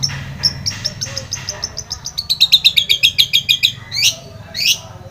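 Long-tailed shrike singing: a string of short high chirps, then a fast rattling run of about ten notes a second through the middle, then a few sharp sweeping calls near the end. A low hum runs underneath.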